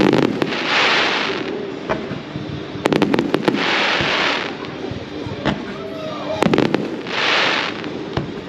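Aerial firework shells bursting: three clusters of sharp bangs about three seconds apart, each followed by about a second of sizzling hiss.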